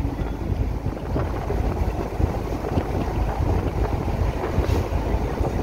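Wind buffeting the microphone through an open window of a moving car, a loud, uneven low rumble, with the car's road noise beneath it.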